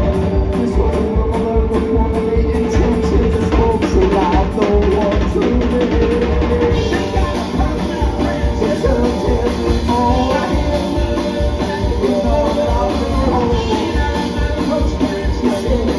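Live rock band playing through a stage PA, with a drum kit keeping a steady beat under the band's pitched instruments.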